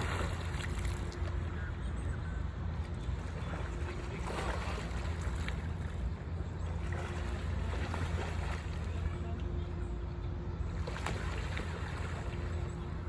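Canada geese splashing in pond water as they dive and flap while bathing, with louder splashes near the start, about four seconds in and around eleven seconds, over a steady low rumble.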